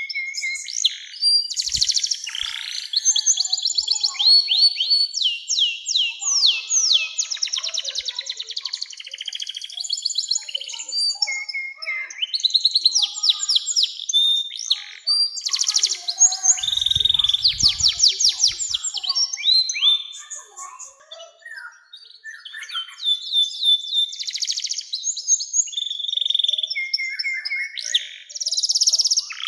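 Domestic canary singing a long, continuous song of fast rolling trills and runs of falling whistled notes, with a short lull about two-thirds of the way through.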